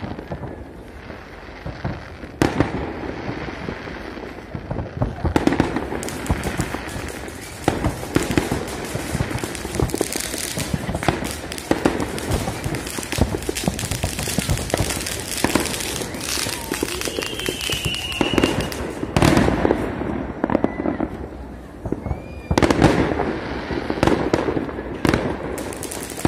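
Fireworks going off in a dense run of bangs and crackling from aerial shells and firecrackers, with short lulls near the start and about twenty seconds in, and a brief whistle near the middle.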